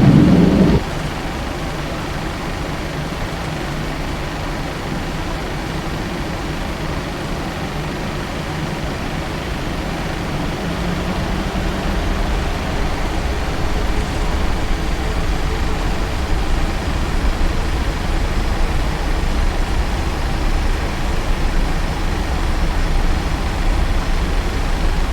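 Boeing 737-900's CFM56-7B jet engines and rushing air heard from inside the cabin during the takeoff roll. It is a steady, dense rumble that grows louder about halfway through as thrust builds.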